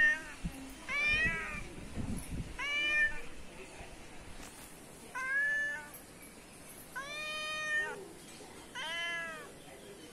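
Cat meowing repeatedly, about six meows spaced a second or two apart, each rising then falling in pitch; the one a little past the middle is the longest.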